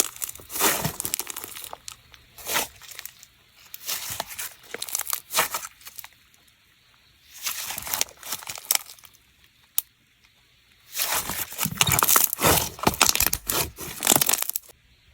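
Fridge-chilled clear slime being handled and squeezed by hand, making sticky, crinkly noises in several bursts with short pauses between them. There is a single sharp click about ten seconds in.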